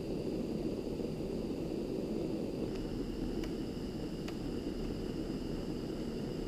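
Handheld gas torch burning with a steady rushing flame noise, with a few faint ticks about halfway through.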